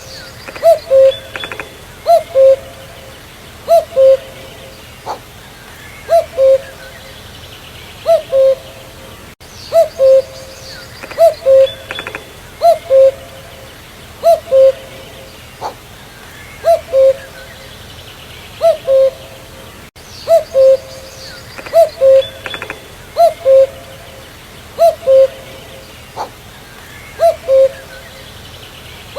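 Common cuckoo (Cuculus canorus) calling its two-note "cu-coo", the second note lower than the first, repeated about every second and a half.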